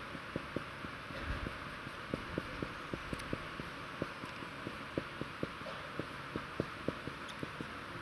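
Marker pen knocking and tapping on a whiteboard while characters are written: an irregular run of short, soft low knocks, several a second, over a steady hiss.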